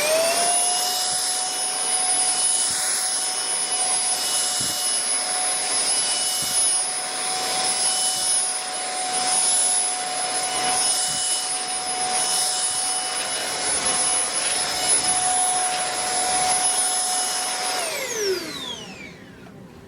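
Easy Home cordless cyclonic stick vacuum running on carpet: a steady high motor whine with rushing air. Near the end it is switched off and winds down in a falling whine.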